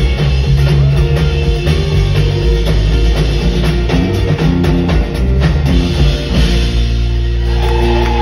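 Live band playing an instrumental passage on drum kit, acoustic and electric guitars and upright bass. The drum hits thin out about six seconds in and a held chord rings on.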